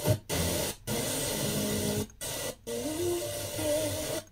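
FM radio tuner being stepped down the band, giving hiss and static with faint snatches of distant stations' audio. The sound cuts out briefly four times as the tuner changes frequency.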